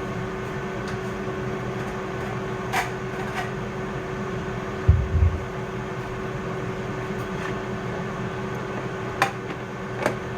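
A steady electric hum at a constant pitch, with a few light clicks and taps and a dull low thump about five seconds in.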